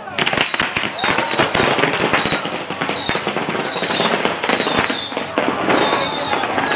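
Fireworks packed into a burning fire-lion effigy going off in a dense, continuous crackle of firecrackers and spark fountains, with repeated high whistles that fall in pitch.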